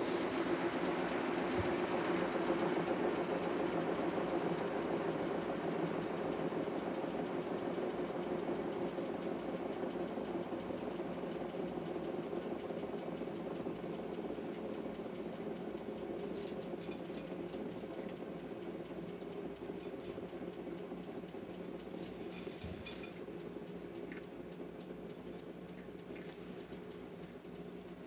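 GE GTW465 belt-drive top-load washer in its spin cycle, the basket spinning with a steady mechanical hum that slowly gets quieter. A few faint clicks and taps come about two-thirds of the way through.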